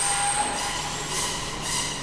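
A machine running: steady mechanical noise with a high whine that stops about half a second in, leaving a hissing noise.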